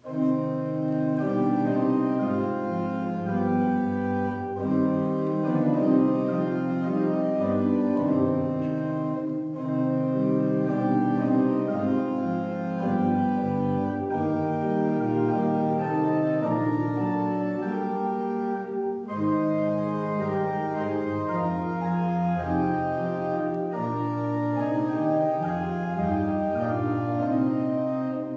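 Organ playing a hymn in full, sustained chords that change in a steady, even rhythm.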